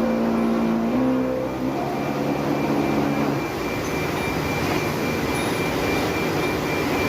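Forklift engine running under load, with a pitched hum that steps up about a second in and drops away about three and a half seconds in.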